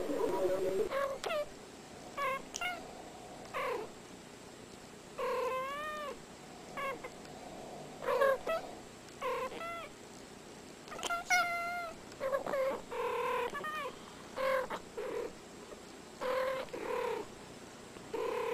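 Two domestic cats making a long run of short meows, one after another with brief pauses, many of them bending up and down in pitch.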